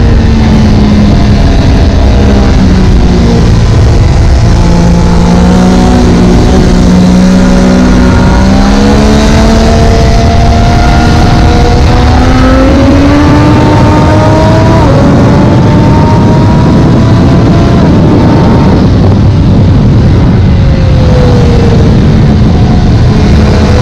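Triumph Daytona 675R's inline-three engine at racing speed, heard onboard through heavy wind rush on the microphone. The engine note climbs slowly as the bike pulls, drops sharply about fifteen seconds in like an upshift, and falls away near the end.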